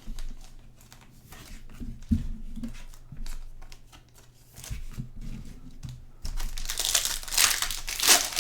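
Trading cards being handled with light clicks and rustles, then about six seconds in a card pack wrapper is crinkled and torn open, loudly and continuously.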